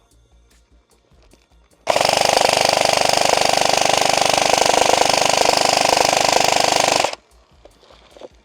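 An airsoft gun firing one long full-auto burst of rapid shots for about five seconds, starting about two seconds in and cutting off sharply.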